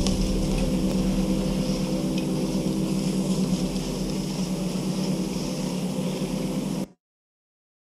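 Chairlift drive motor running at steady speed, a hum of several steady tones with a hiss over it, which cuts off suddenly near the end.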